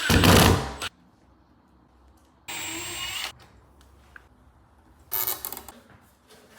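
Power drill running in short bursts: a loud run in the first second, then two shorter runs about two and a half and five seconds in, with quiet between.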